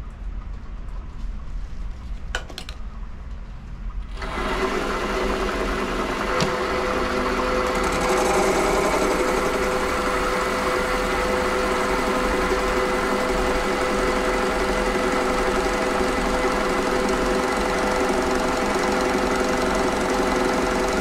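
WM210V bench lathe starting up about four seconds in and then running steadily with a hum and whine. From about eight seconds in a steady hiss joins as the tool turns a Delrin blank, throwing stringy plastic chips.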